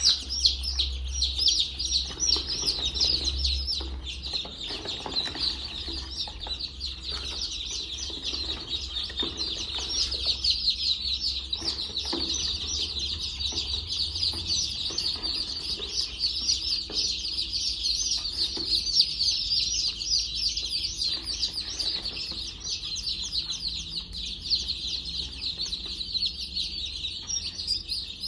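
A brood of chicks peeping continuously, many short high cheeps overlapping without a break.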